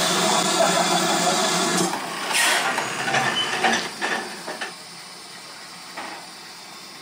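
A steady mechanical running noise from the standing GWR 2800-class steam locomotive stops about two seconds in. It is followed by a string of metal clanks and knocks as the crew move about the footplate and tender, with one last knock near the end.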